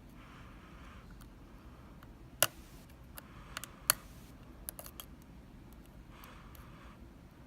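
A tension tool and a hook pick working the pins of a Best SFIC lock core: light scattered metallic clicks, with two sharp clicks about two and a half and four seconds in.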